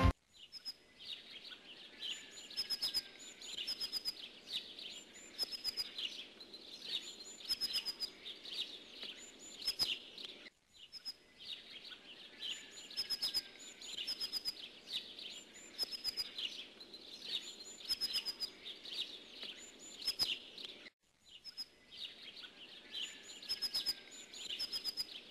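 Small songbirds calling and twittering: short, high, thin notes in quick runs. The same passage repeats about every ten seconds, with a brief break between repeats.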